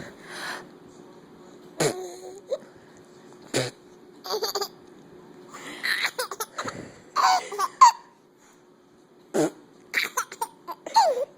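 Laughter in short bursts, a dozen or so across the stretch, with quiet gaps between them. Some of the bursts slide up or down in pitch.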